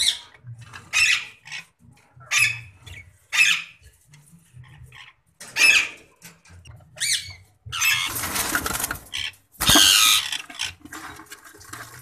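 Rose-ringed (ringneck) parakeets in a nest box, giving short squawks about once a second, with two longer, harsh noisy bursts about eight and ten seconds in.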